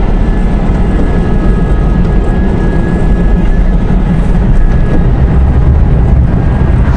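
Electric Citroën 2CV prototype driving along in fourth gear: steady road and wind rush through the open-roofed cabin, with a faint steady whine from the drivetrain and no engine note. The low rumble grows heavier near the end.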